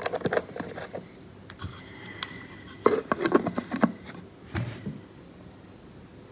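Plastic protein shaker bottles handled on a table: a lid is put on and the bottles are knocked and shifted, giving several short runs of clicks and taps.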